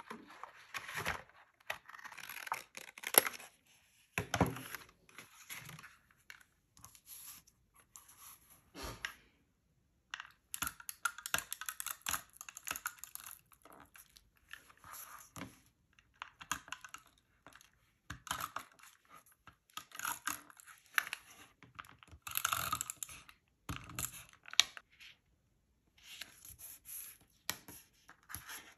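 Paper being handled and torn: irregular bursts of rustling and tearing with small clicks, broken by short pauses.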